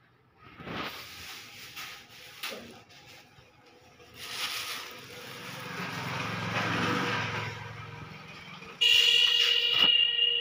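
Road traffic: a motor vehicle passes, then a horn sounds for about two seconds near the end, starting abruptly and standing out as the loudest sound.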